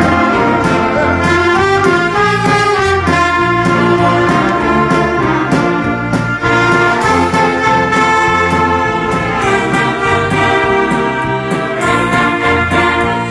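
Large band of trumpets, trombones, saxophones, clarinets and violins with a drum kit playing together under a conductor, the brass carrying the tune over a steady drum beat.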